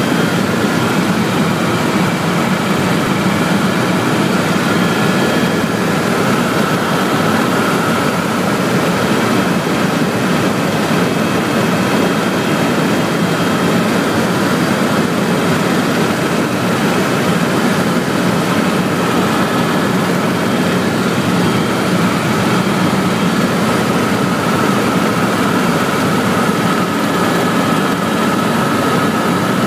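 Tour helicopter in flight, heard from inside the cabin: a loud, steady drone of engine and rotor noise with a faint steady whine above it.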